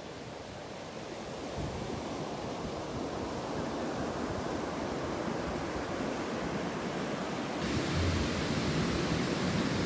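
Sea surf washing in, a steady rush of noise that slowly grows louder and turns brighter and louder about three-quarters of the way through.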